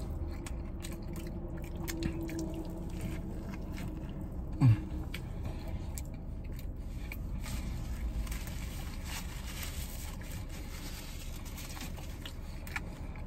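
Faint wet mouth sounds of a man eating a sandwich: chewing, lip smacks and finger-licking, heard as scattered small clicks and squishes. A short falling sound stands out about four and a half seconds in.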